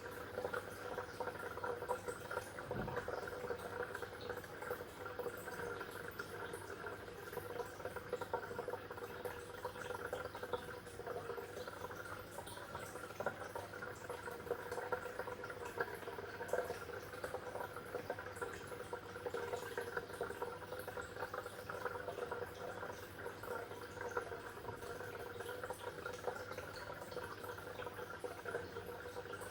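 Water bubbling and trickling steadily, with a constant stream of small pops and gurgles.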